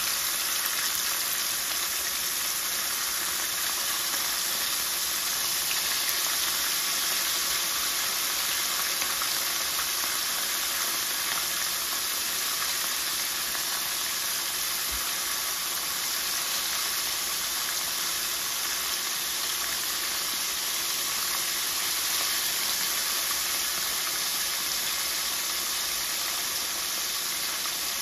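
Flour-coated fish shallow-frying in hot oil in a pan: a steady, even sizzle.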